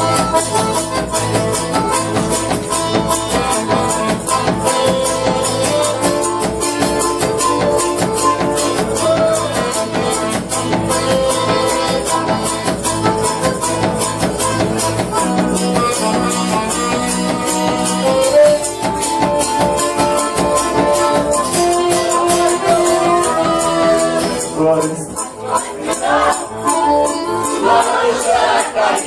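Live band playing the instrumental introduction of a song, sustained melodic notes over a steady, busy percussion rhythm, with a short break near the end before the vocals come in.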